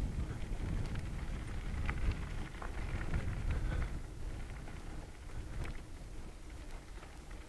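Bicycle riding along a gravel towpath: a low rumble of tyres on gravel and wind on the microphone, with a few light clicks and rattles from the bike. The rumble grows quieter over the second half.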